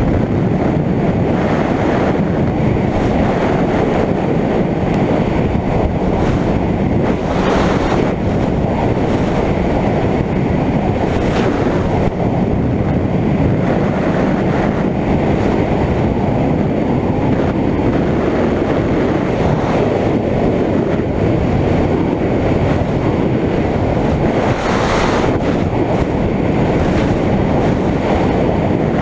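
Personal watercraft running steadily at speed: heavy wind rumble on the microphone over the rush of water and the engine's drone, with no change in pace.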